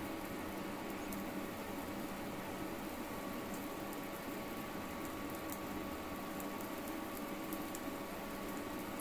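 Batter cooking in hot oil in the cups of a cast-iron ponganalu (paniyaram) pan: a soft, steady sizzle with scattered faint pops, over a steady low hum.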